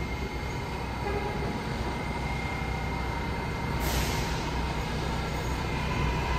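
R188 subway train pulling slowly into a station: a low rumble with a steady high whine, growing slightly louder, and a brief hiss about four seconds in.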